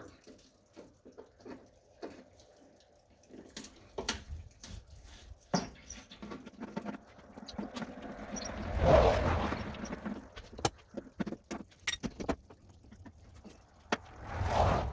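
Irregular small clicks, taps and rattles of hand tools and bolts as a tractor side panel is unbolted, with a louder rustle about nine seconds in.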